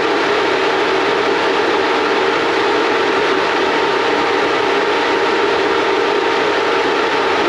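Sandblast cabinet in use: a loud, steady hiss of compressed air and abrasive blasting the mini bike's handlebars and front end, with the cabinet's fan running.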